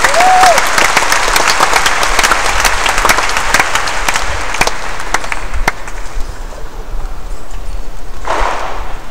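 A hall audience clapping, with a short whistle near the start. The clapping dies down after about six seconds, and a brief burst of crowd noise comes near the end.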